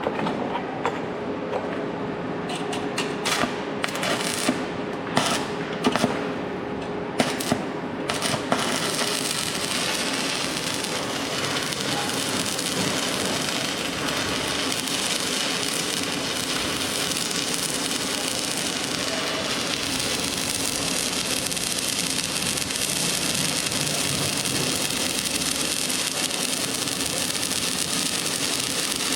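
Stick (arc) welding: a few separate sharp cracks and pops, then from about eight seconds in the steady crackling hiss of a running welding arc.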